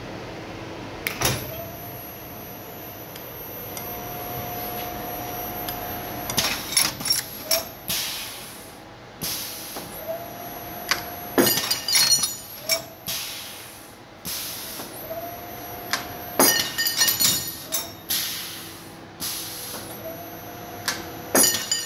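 Automatic U-bolt bending machine running its cycle over and over, about every five seconds: sharp clacks of the mechanism, short hisses of air from its pneumatic cylinders, and a motor's steady whine in between.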